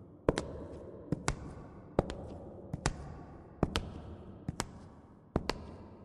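Sharp echoing knocks at a slow, even pace, mostly in close pairs about one pair a second, each dying away in a reverberant tail.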